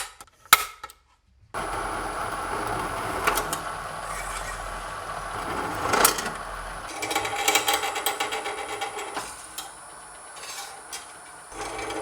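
A couple of sharp knocks at the start, then a small power tool running, with a fast, even rattle setting in about halfway through.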